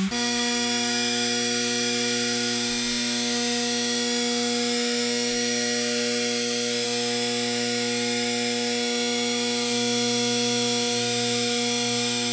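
Steady electrical hum of a gel electrophoresis power supply: a low, even buzz with a hiss over it.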